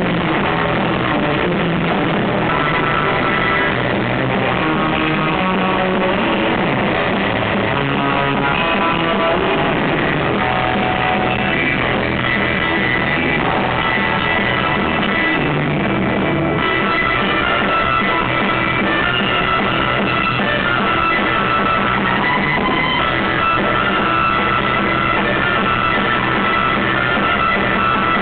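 Loud live surf rock instrumental: a Fender Stratocaster electric guitar played fast over a drum kit, with no singing.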